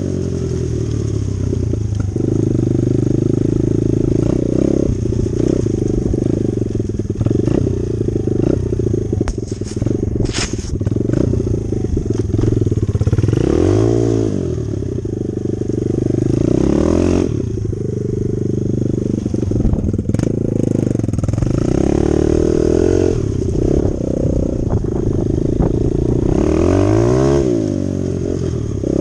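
Dirt bike engine running under way, its pitch rising and falling several times as the throttle is opened and closed through the gears. A few sharp clicks about ten seconds in.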